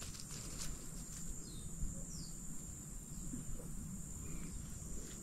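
Outdoor ambience: a steady high-pitched insect drone, with a few short, falling bird chirps and a low rumble underneath.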